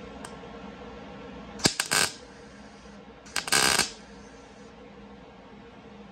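MIG welder tack-welding a sheet-steel patch panel into a car door: two short tack welds, each well under a second, about a second and a half apart.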